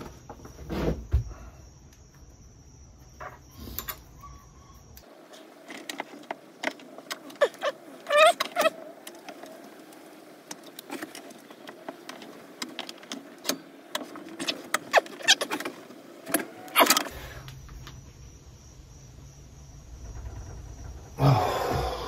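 Bench vise being worked to crush a 1-gauge copper cable lug onto battery cable: irregular metal clicks and knocks from the vise and the lug, with a few short squeaks about eight seconds in.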